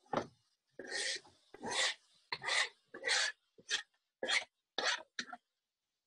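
Chopped garlic and onions being scraped off a plastic cutting board into a frying pan: about eight scraping strokes, shorter and quicker toward the end.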